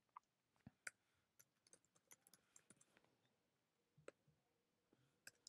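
Faint computer-keyboard keystrokes: a dozen or so short, scattered clicks with near silence between them.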